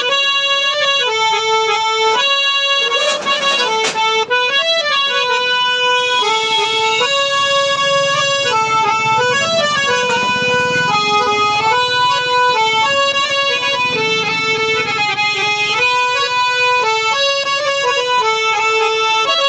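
Old Ratiram and Sons hand-pumped harmonium with German male reeds, playing a melody one note at a time with a steady reedy tone, the notes stepping up and down.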